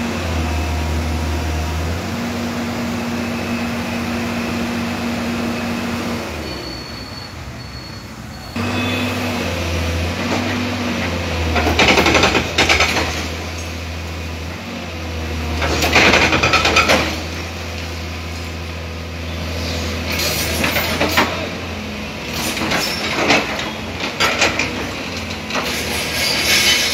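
Demolition excavator's diesel engine running steadily, its pitch shifting as it works. Several loud bursts of crashing and scraping debris come and go, the loudest around the middle.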